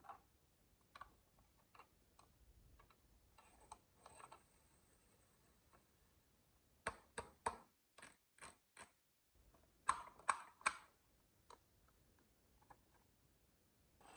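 Marbles clicking and clacking on a wooden HABA marble run: scattered single clicks, then quick runs of three sharp clacks, the loudest run about ten seconds in.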